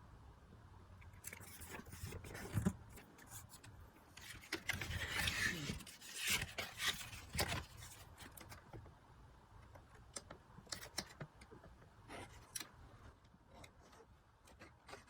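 Paper craft handling: cardstock being moved, rubbed and scraped on a work surface, with small taps and clicks, busiest a few seconds in.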